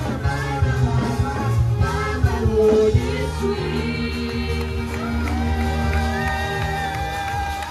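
Live church praise band with singing: a steady beat with bass for the first few seconds, then long held keyboard chords under the voices.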